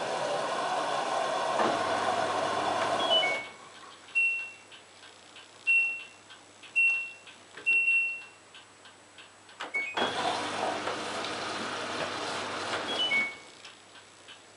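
LG washing machine: a steady rushing, mechanical running noise cuts off at a short falling three-note chime. Four single control-panel beeps follow, the last one longer. A rising chime then comes, and the running noise starts again for about three seconds before stopping at another falling chime.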